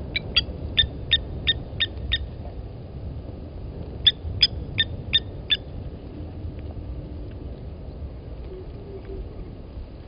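Blacksmith lapwing giving its sharp, clipped 'tink' alarm calls in two quick runs of about three a second, defending its nest as an impala comes close.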